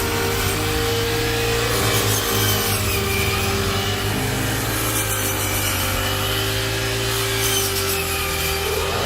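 Rice harvesting machine running: a steady engine hum under harsh, rasping mechanical noise, its pitch shifting a couple of times and rising near the end.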